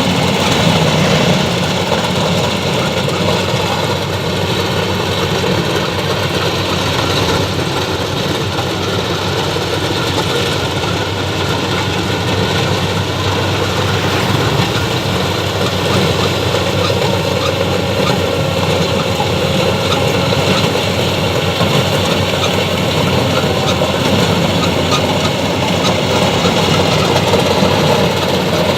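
Rice combine harvester working: its diesel engine and threshing machinery running steadily and loudly.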